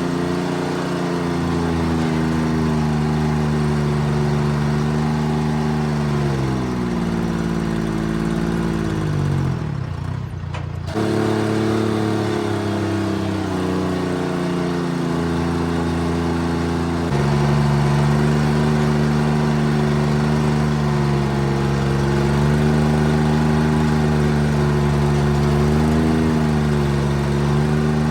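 Diesel engine of a Timberjack 225D skidder running under load, its engine speed dropping several seconds in and picking up again near the end. There is a short break in the sound about ten seconds in.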